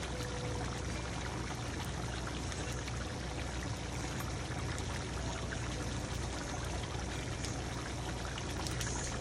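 A pan of chicken curry sauce bubbling at a steady simmer as it reduces: a continuous hiss with many small pops, over a steady low hum.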